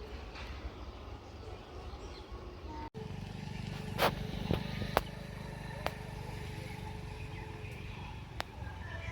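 Steady low vehicle rumble, broken by an abrupt cut about three seconds in, after which it is louder. Several sharp clicks or knocks stand out, the loudest about a second after the cut.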